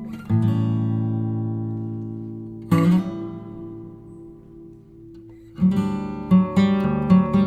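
Background music on acoustic guitar: strummed chords that ring out and fade, a pause, then a run of plucked notes.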